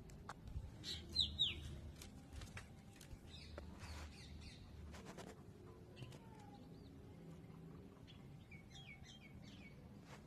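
Bird chirping: two quick, high, falling chirps about a second in, and a run of fainter chirps near the end, with a few light clicks in between.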